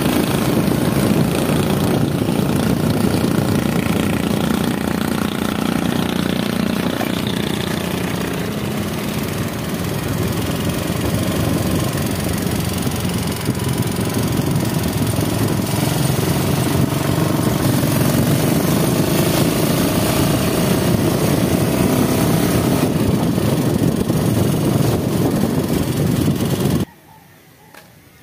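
Small motorcycle engine running steadily as the bike is ridden along a road, with road noise. It cuts off suddenly near the end, leaving only a faint background.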